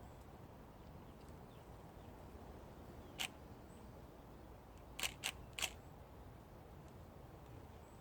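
DSLR camera shutter firing four times: once about three seconds in, then three quick shots in a row about two seconds later, over a faint steady low background noise.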